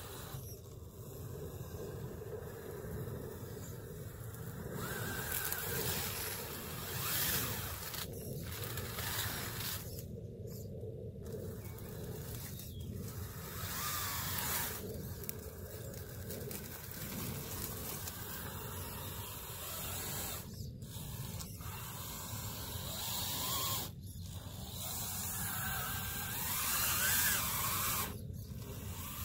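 Electric drive motor and gears of a radio-controlled off-road truck running under throttle as it climbs through mud, its whine rising and falling with the throttle.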